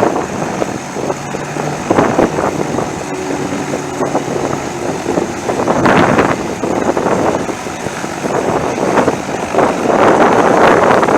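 EOS 100 single-cylinder two-stroke paramotor engine, fitted with a modified exhaust flange and a 10 cm longer carbon silencer, running, with wind buffeting the microphone in loud rushes about 2, 6 and 10 seconds in.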